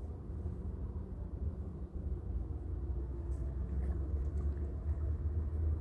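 Steady low rumble of outdoor background noise, with a few faint ticks about three to four and a half seconds in.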